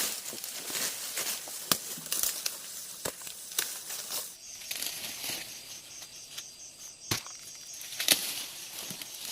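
Irregular rustling and crackling with sharp snaps, the sound of dry plant material being handled, with one louder snap about seven seconds in. From about four seconds in, a faint, high, finely pulsing buzz sits underneath.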